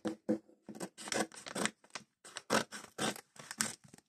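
Scissors cutting into the packaging of a trading-card multipack: a run of short, irregular snips and scrapes, several a second.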